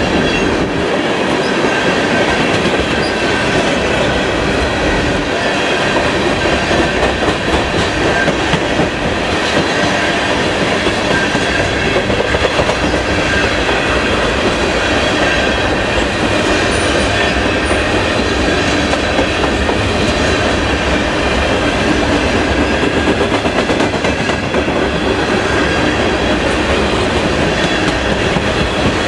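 Freight train of tank cars rolling steadily past close by, steel wheels running on the rails, with a thin high tone sounding under the noise throughout.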